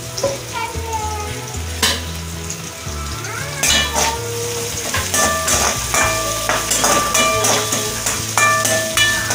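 Chopped ginger, garlic and green chillies sizzling in hot oil in an aluminium kadai, stirred with a metal spoon that clicks and scrapes against the pan a few times. Steady tones of background music join from about halfway.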